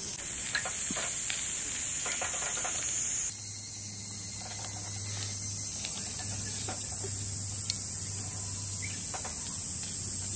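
Steady high chirring of insects such as crickets, with a few light clicks of wooden chopsticks turning sausages on a wire grill grate.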